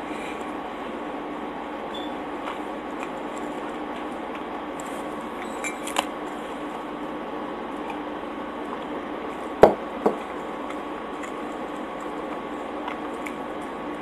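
A drinking cup set down on the table: two sharp knocks about half a second apart, with a couple of lighter clinks a few seconds before, over a steady low hum.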